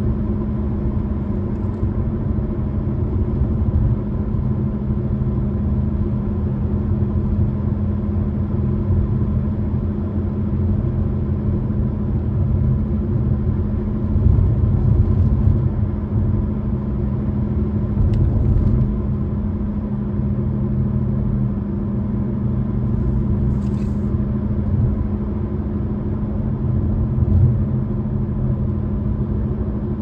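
Steady road noise inside a car cruising at highway speed: a low rumble of tyres and engine with a constant hum. It swells briefly about halfway through.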